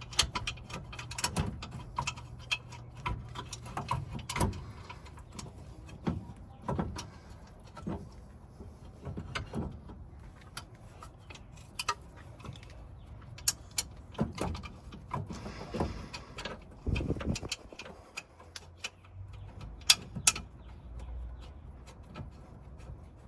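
Hand tools and metal parts clicking, tapping and clanking irregularly while a screw is fitted and worked in on a car's front wheel hub and brake assembly.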